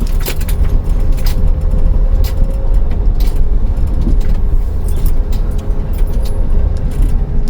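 Cabin noise of a moving camper van: a steady low engine and road rumble with a faint hum, and scattered short rattles and clicks from inside the van.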